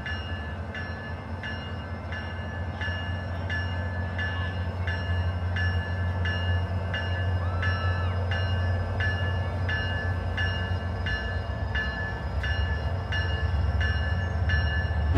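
Approaching SunRail commuter train: its warning bell rings steadily, about three strokes every two seconds, over a low diesel rumble that grows slowly louder as the train nears.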